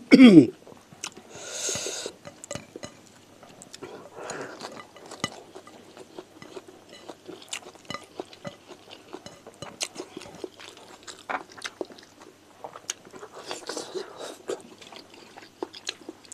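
Open-mouthed chewing and lip smacking as a man eats rice and chicken with his hands: many small wet clicks and smacks, with a few breaths in between. A short, loud voice sound falls in pitch at the very start.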